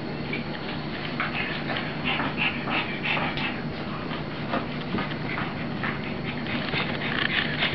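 Two pugs, a puppy and an adult, play-fighting, with a rapid run of short dog noises, several a second, from the tussle.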